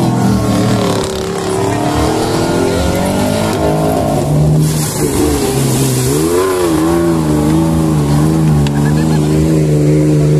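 Off-road 4x4 truck engine revving hard as it ploughs through a flooded mud pit. It holds high revs, and the pitch drops and climbs again a little past halfway as the throttle is worked.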